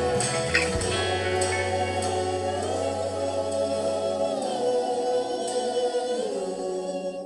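Background music: a song with choir-like singing holding long notes. The bass drops out about two-thirds of the way in, and the music begins to fade near the end.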